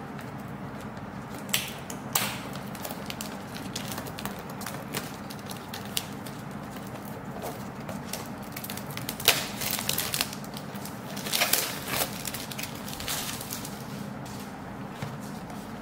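Packaging being handled by hand: paper and small plastic bags crinkling in short, irregular bursts with a few sharp clicks, busiest past the middle, over a steady low hum.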